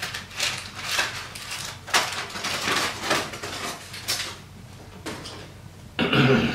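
Aluminium foil crinkling and crackling as it is peeled off a smoked brisket, a run of irregular crackles for the first four seconds or so. A brief louder sound comes near the end.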